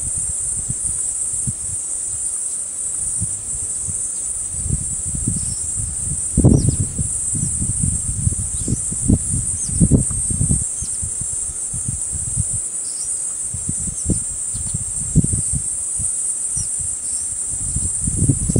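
Steady high chirring of insects such as crickets, with bursts of low rustling and thuds every few seconds as a jackal tugs and tears at a stork carcass.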